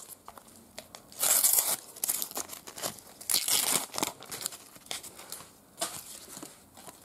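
Thin paper sticker packets being torn open and the stickers inside handled: short bursts of tearing and crinkling paper, the loudest about a second in and again a little past three seconds in, with quieter rustling between.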